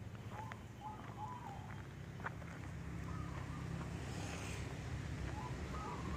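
A few brief bird calls, short chirping phrases repeated several times, over a low steady rumble that grows a little louder toward the end. There are a few faint clicks.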